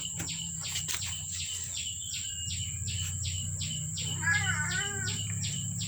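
High chirping repeating evenly, about three chirps a second, over a low steady hum. A little past the middle, a short wavering call rises briefly over the chirps.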